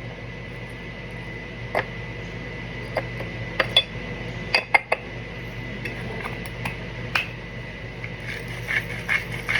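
Kitchen clatter of dishes and utensils: scattered clinks and knocks, then a quicker run of taps near the end, over a faint steady hum.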